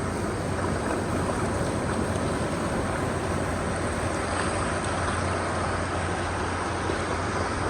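Steady wind noise on the microphone over the wash of ocean surf, with a low rumble and no distinct events.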